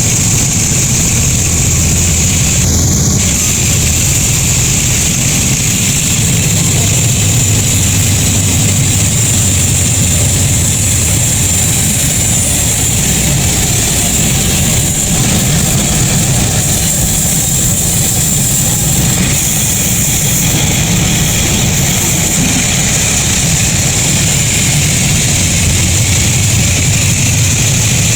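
Sawmill machinery running steadily: a low, engine-like hum under a constant high whine.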